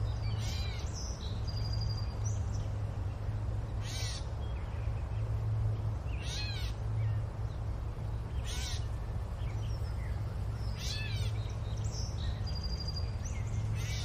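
Wildlife ambience: an animal or bird gives short, cawing calls about every two seconds, with a few brief whistles between them, over a steady low rumble.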